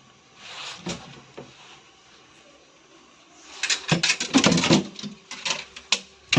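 Metal parts and tools being handled during washing machine repair: a few clicks early on, then a dense burst of clattering and rattling about three and a half seconds in, followed by a couple of sharp knocks.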